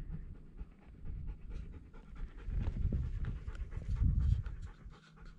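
A dog panting, with scattered short clicks over it.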